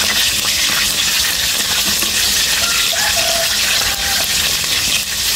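Hot oil sizzling steadily as slices of eggplant stuffed with minced pork fry in a wok, the pieces browned and nearly done.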